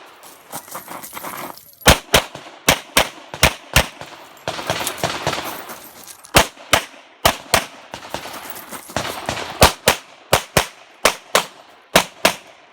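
Handgun fired rapidly through a competition stage: sharp shots, mostly in quick pairs a fraction of a second apart, with a pause of a couple of seconds in the middle before the shooting resumes.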